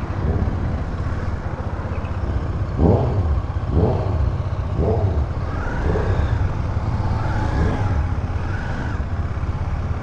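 Motorcycle engines running, with a few short revs about a second apart from about three seconds in.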